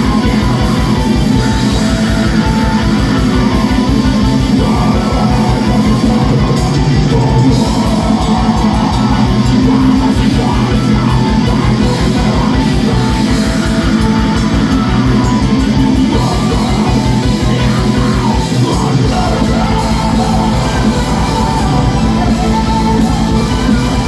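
A heavy metal band playing live and loud: distorted electric guitars over a fast, steady bass-drum pulse, with vocals. The bass drum breaks off briefly about three-quarters of the way through, then carries on.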